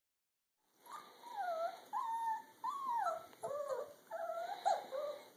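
Young puppies whimpering and whining: a string of high-pitched cries that slide up and down, several overlapping, starting about a second in.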